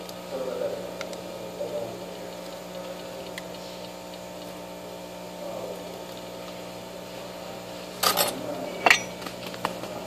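Clatter and clicks of an opened iPod touch (4th generation) being handled and set down on a cloth-covered repair bench, over a steady hum. The loudest is a short clatter about eight seconds in, then a sharp click and a few lighter ones.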